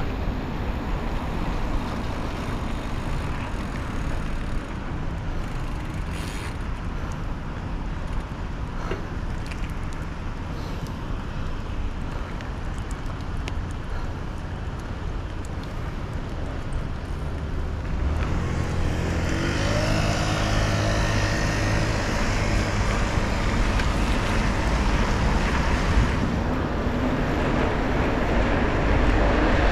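Ride noise while cycling on a rainy road: wind rumbling on the microphone along with passing road traffic. From about two-thirds of the way through, the traffic grows louder and hissier.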